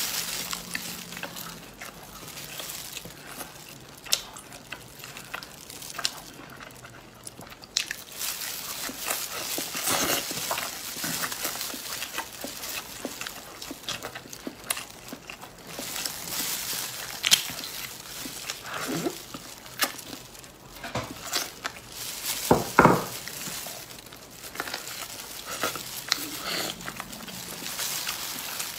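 Close-up eating sounds as meat is bitten and torn from a roasted rib bone: chewing, smacking and wet mouth clicks, with disposable plastic gloves crinkling. The clicks come irregularly, with a few louder snaps later on.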